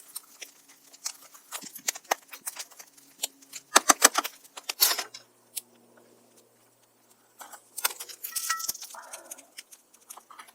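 A string of sharp clicks, taps and light clatter as small objects are handled, with a louder burst of clattering about four to five seconds in.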